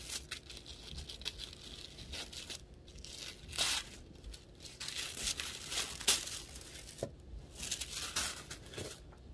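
Paper packaging on a subscription box being torn open and crinkled by hand: irregular spurts of rustling with a few sharper rips.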